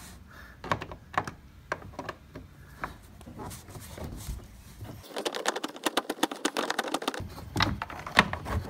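Hand screwdriver working a screw in the hard plastic panels of a Sea-Doo Spark: scattered light clicks and rattles, with a dense run of rapid clicking about five seconds in.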